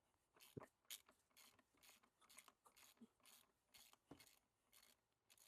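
Faint, short scraping strokes repeating about twice a second, from hand-tool work under the car.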